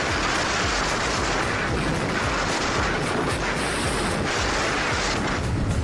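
Steady wind rush over the microphone of a motorcycle riding at speed.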